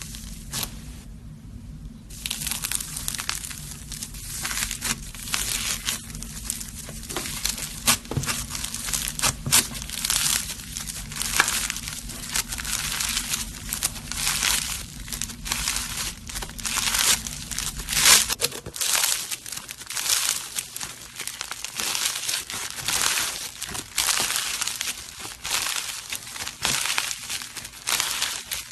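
Slime being worked by hand: a continuous run of short crackling, crinkling squishes and pops, one after another.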